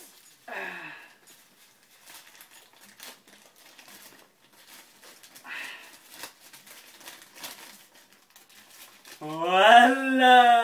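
Paper crinkling and rustling in quick small crackles as it is handled for a paper magic trick, with a couple of short vocal sounds. About nine seconds in, a voice sings out a loud note that rises and then holds, the loudest sound here.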